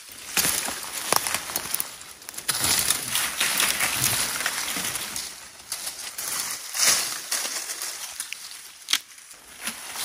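Dry branches and dead undergrowth rustling and crackling as brush is cut and dragged out by hand, in uneven clumps with a few sharp snaps.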